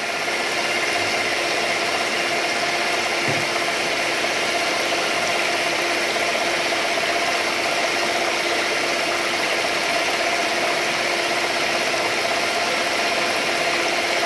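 Electric stand mixer running at a constant speed, its motor humming steadily as the beater whisks liquid cake batter in a stainless-steel bowl.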